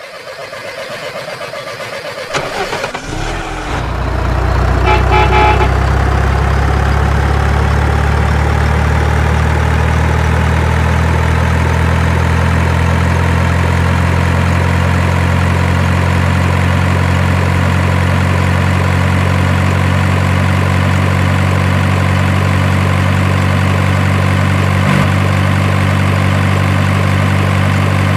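Heavy truck engine running with a steady, low drone that builds up over the first few seconds and then holds even, with a brief horn-like toot about five seconds in.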